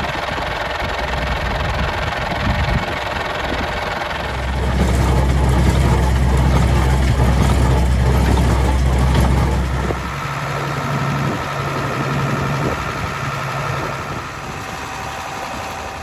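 Tractor diesel engines idling up close, the first an International 885XL's. About four seconds in, the note turns louder with a deep hum. At about ten seconds it changes again to a different, higher steady note.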